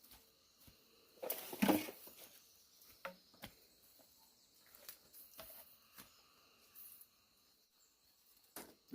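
Scattered rustles and light knocks from handling a plastic tarp and shelter materials, with one louder rustling burst about a second in, over a faint high insect hiss.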